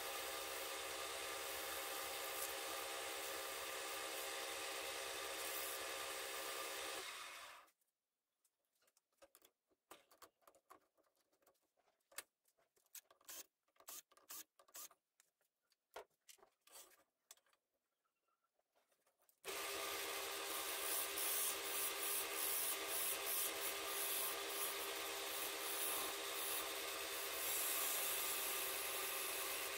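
Wood lathe running with a steady hum while sandpaper is held against the spinning wood, giving a dry rubbing hiss. About 7 seconds in it drops to near silence with a few faint clicks. About 20 seconds in the lathe runs again and a hand-held turning tool cuts into the spinning wood with a rapid, rough scraping.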